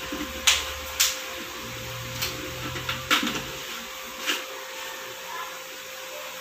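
Hard plastic clicks and knocks, about five spread over the first four seconds, the first the loudest, as a plastic paint container is handled and fitted onto an electric paint spray gun.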